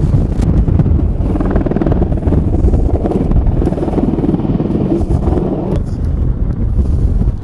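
Wind buffeting the microphone: a loud, uneven low rumble that thins a little about six seconds in.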